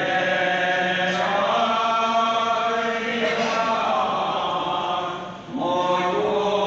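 A group of devotees chanting naam, Assamese Vaishnava devotional prayer, in long held sung phrases. One phrase ends about five and a half seconds in, and the next begins with a rising pitch.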